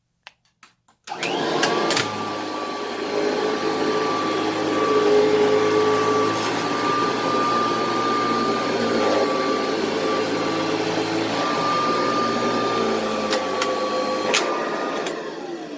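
Kirby Heritage II Legend upright vacuum cleaner starting up about a second in and running steadily with a high motor whine. Near the end it is switched off and winds down, its whine falling in pitch as it fades.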